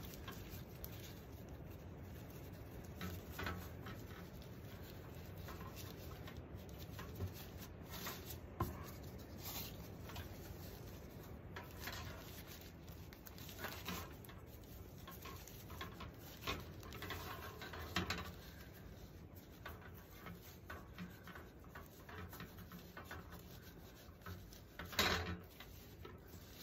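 Thin plastic tablecloth strips crinkling and rustling in short irregular rustles as they are knotted onto a wire wreath frame, over a steady patter of heavy rain.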